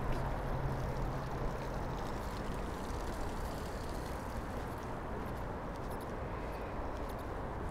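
Steady rumble of city traffic, with a low engine hum that fades out about two seconds in.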